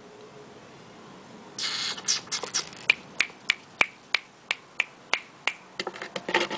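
A short rattle about one and a half seconds in, then a run of sharp, evenly spaced clicks, about three a second, from a Persian kitten working at something on the carpet beside its toys.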